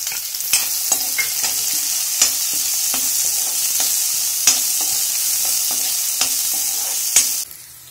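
Chopped onions sizzling in hot oil in a kadhai, a steady hiss, with the clack and scrape of a steel spatula stirring them every second or so. The sizzle cuts off suddenly near the end.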